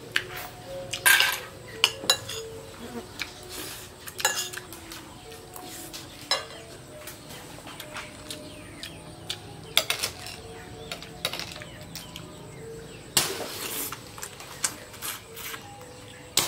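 Cooked clam shells clicking and clinking against each other and a dish as the meat is picked out and eaten, in scattered sharp clinks with a longer noisy scrape about thirteen seconds in.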